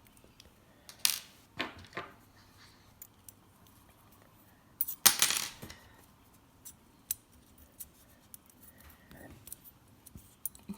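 Small metal engine parts and tools clinking against each other and the bench as a nitro RC engine's head is being refitted. There are a few sharp clinks with a short ring, the loudest about five seconds in, and light ticks between them.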